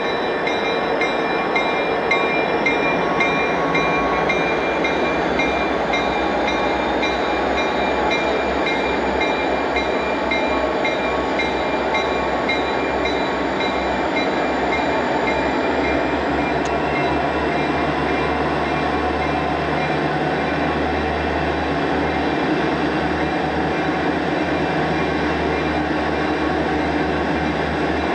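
Canadian National diesel locomotives leading a train past at close range: steady engine and rail noise with no letup.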